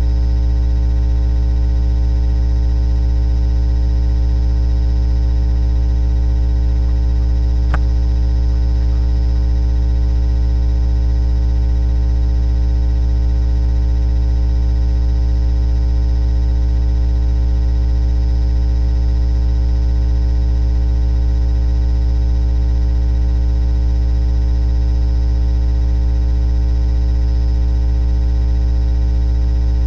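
Loud, steady electrical mains hum with a buzzy string of overtones; one faint click about eight seconds in.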